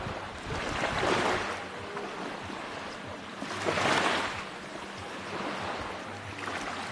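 Small sea waves breaking and washing on a beach, two washes rising and fading about one second and four seconds in.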